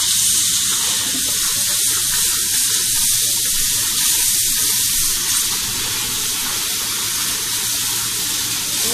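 Kitchen sink faucet running steadily, its stream of water splashing into the sink and over the wet cat's fur as hands work it through.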